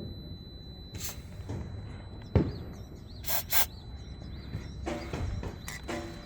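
Two short hissing sprays from a pressurised chain-lube aerosol can, one right after the other, a little after a sharp click. Birds chirp faintly in the background.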